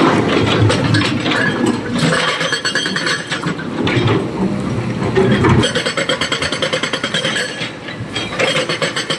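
Sany crawler excavator working with its diesel engine under load. Rock knocks and scrapes in the bucket as it digs through water during the first half, then a rapid, even pulsing follows.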